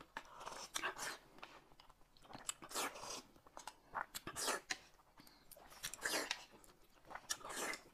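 Quiet, intermittent eating sounds: chewing and slurping soup from a spoon, in short separate bursts with pauses between.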